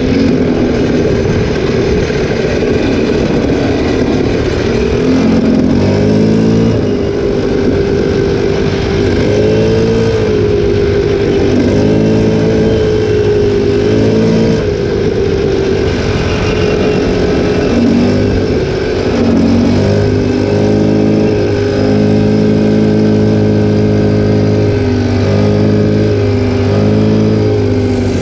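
Linhai 300cc 2x4 ATV's single-cylinder four-stroke engine running under way on a gravel track, its pitch rising and falling over and over as the throttle is opened and eased.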